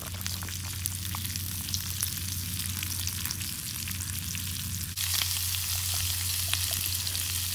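Needlefish fillets frying in butter in a small pan over a solid-fuel stove: a steady sizzle with many small crackles and pops. The sizzle jumps louder suddenly about five seconds in, when the fillets are browning.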